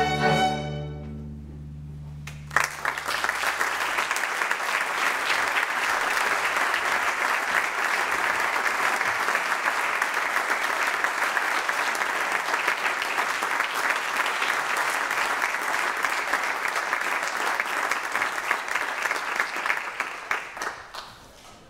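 A string orchestra's final chord cutting off, its low strings ringing on briefly, then, after a short pause, an audience applauding steadily that dies away near the end.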